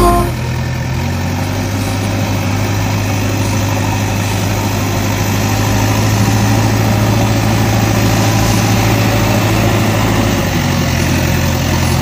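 Remote-control toy wheel loader running, a steady engine-like drone with a low hum that changes slightly about ten and a half seconds in.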